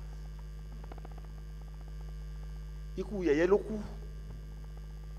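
Steady low electrical mains hum, with a short burst of voice about three seconds in.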